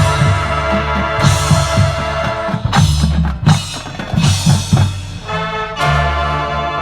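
Marching band playing: held brass chords give way to a passage of loud drum hits in the middle, and the full band comes back in with a sustained chord near the end.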